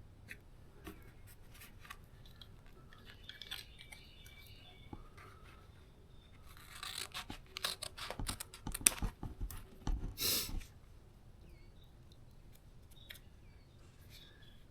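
Vinyl stripe material being handled and trimmed by hand: scattered light clicks and rustles, then about halfway through a dense run of sharp snipping, crinkling and scraping sounds lasting about four seconds.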